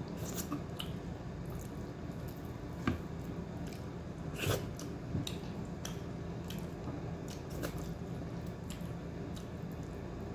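Close-up eating sounds: wet mouth smacks and chewing clicks scattered throughout, with a sharper click about three seconds in and a few louder ones around the middle, over a steady low hum.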